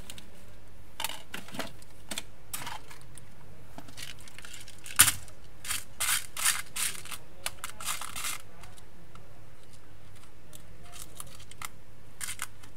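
Hands handling the plastic and metal parts of an opened PS4 Slim's disc drive: scattered clicks and small knocks, the sharpest about five seconds in, followed by a quick flurry of clicks.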